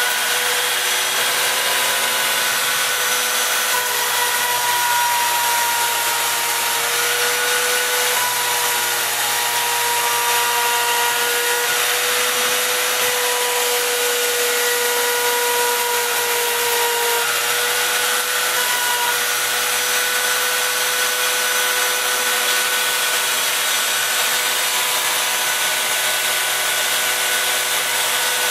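CNC router spindle running steadily as it cuts parts out of a sheet: a constant high-pitched whine over a hiss, the pitch shifting slightly now and then as the cutter moves along the cut path.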